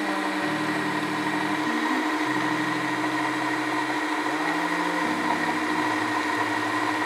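Single-serve K-Cup coffee brewer running as it brews a medium cup: a steady machine hum, with lower tones stepping up and down in pitch every second or two.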